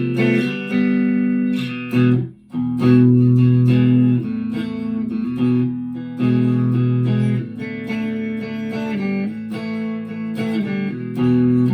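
Chapman ML3 Thinline Pro Classic electric guitar played through a Harley Benton Tube15 valve amp on the second pickup-selector position, two pickups combined. Chords and notes ring out and change every second or two, with a short break about two seconds in.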